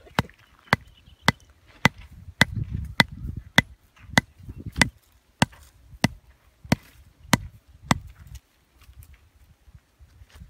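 A hatchet pounding a small wooden stake into hard ground: about fourteen sharp, evenly paced blows, a little under two a second, stopping about eight seconds in.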